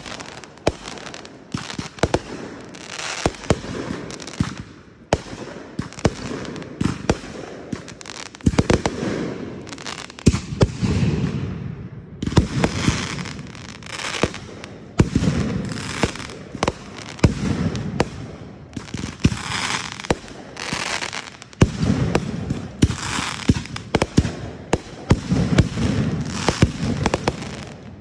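Fireworks display: aerial shells bursting in a steady run of sharp bangs, often several close together, mixed with stretches of crackling lasting about a second each.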